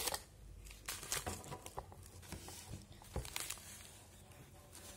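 Light handling noise from a pink polka-dot wrapper being pulled out of a green tube package and set down: a few soft, irregular rustles and taps.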